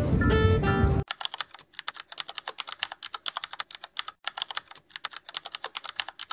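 Jazz guitar music that cuts off about a second in, followed by rapid, irregular computer-keyboard typing clicks, a typing sound effect for on-screen text being written out.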